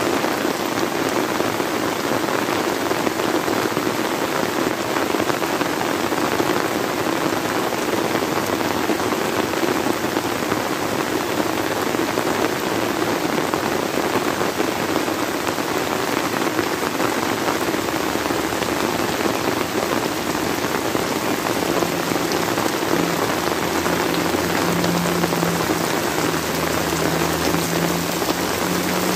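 Heavy rain falling steadily, splashing on a water-filled ditch, concrete paving and flooded rice paddies. A faint low hum joins in for the last several seconds.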